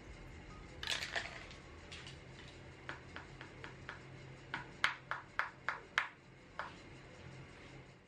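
Aerosol spray-paint can being shaken, its mixing ball clinking inside. The clinks come in a regular run of about three a second, loudest in the middle, with a few fainter ones before and after.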